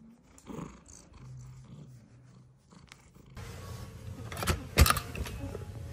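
Kitten purring softly while held, a faint steady low hum. After about three seconds the background becomes noisier, with a few sharp clicks and knocks; the loudest knock comes near the end.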